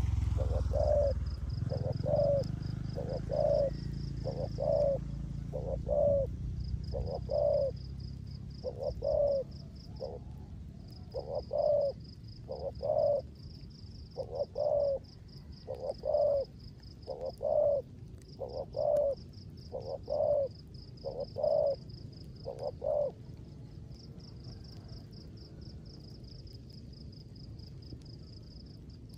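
Spotted dove cooing: short phrases of two or three coos repeated over and over, stopping about 23 seconds in. The cooing comes over a steady, high, pulsing insect trill.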